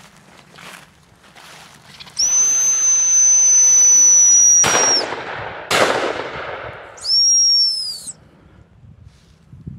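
A long steady blast on a dog-training whistle, with two shotgun shots about a second apart near its end, each leaving a short echo; then a second, shorter whistle blast that dips in pitch as it stops.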